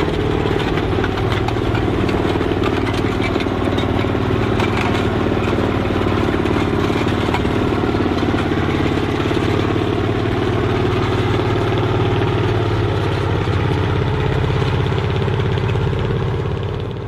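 A heavy tank engine running steadily at a deep idle, standing for a Panther tank's V-12 Maybach engine. It fades away at the very end.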